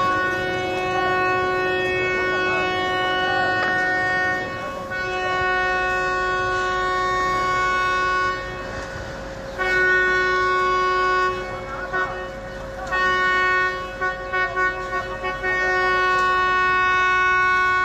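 A vehicle horn sounding in long, steady blasts. It breaks off about eight seconds in and stutters briefly a few times later.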